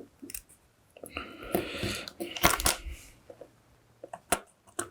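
Small sharp clicks and short rustles of hands handling small electronic parts and a circuit board on a workbench, with a cluster of clicks near the end.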